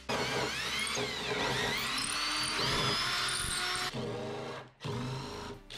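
Cordless drill boring a hole through a boat's fiberglass gel-coat transom. The motor's whine slides up and down in pitch as it runs, then stops and starts briefly a couple of times near the end.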